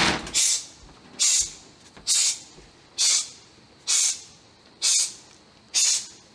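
Short, sharp hisses repeated evenly, a little under one a second, about seven of them: a correction sound aimed at a dog, meant to head off excited jumping at an approaching visitor before it starts.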